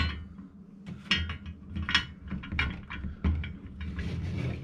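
Steel brake pedal and pedal support bracket clinking and knocking together as the pedal is slid into place on its pivot: a string of irregular light clicks and knocks over a low steady hum.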